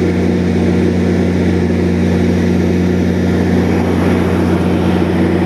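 MP40 diesel locomotive's engine running with a steady, low drone as the train pulls out of the station.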